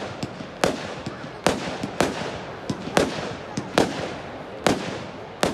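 Aerial firework shells bursting in quick succession, about seven loud bangs spaced under a second apart, with smaller crackling pops between them.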